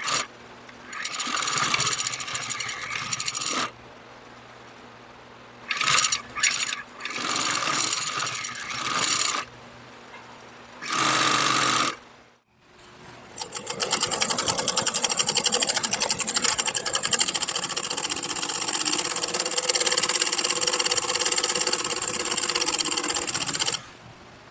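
Industrial sewing machine stitching black webbing onto a heavy PVC vinyl tarp, running in short bursts that start and stop, then in one long steady run of about ten seconds in the second half. A low hum lies under the pauses between runs.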